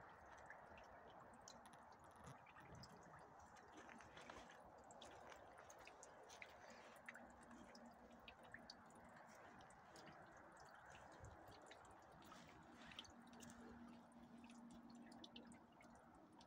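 Near silence: faint outdoor ambience, a soft hiss with scattered light ticks, and a faint low hum that comes and goes twice in the second half.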